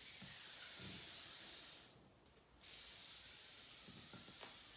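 Exercise slider swishing across a wooden floor under the back foot during sliding lunges: a steady hiss that stops for a moment about two seconds in, at the top of a rep, then resumes.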